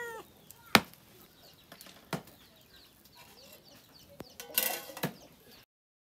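Heavy knife chopping chicken on a wooden log block: a few sharp, separate strikes, the loudest about a second in. Near the end comes a short clattering burst, then the sound cuts off suddenly.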